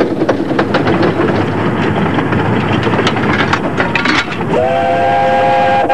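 Ravenglass and Eskdale Railway 15-inch gauge steam locomotive working uphill, its exhaust beating rapidly over the rattle of the train. About four and a half seconds in, its steam whistle sounds, a steady blast of several notes at once.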